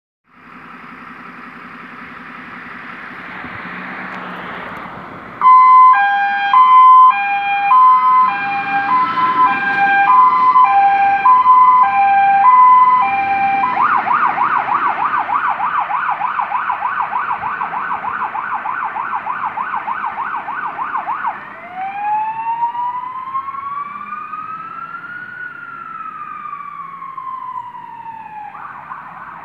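Iveco Eurocargo fire engine's diesel engine running. About five seconds in, its siren starts loud with a two-tone hi-lo pattern, then switches to a fast warble and then a slow rising and falling wail, with a brief fast warble near the end. The sound fades as the engine drives away.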